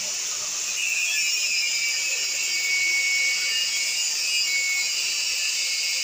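Angle grinder with a cutting disc cutting through the steel shell of a refrigerator compressor: a steady high-pitched whine and grinding hiss of the disc in the metal.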